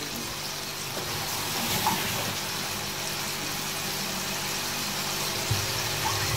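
Meat patties frying in a pan with a steady soft sizzle, over a steady low hum, with a couple of faint knocks near the end.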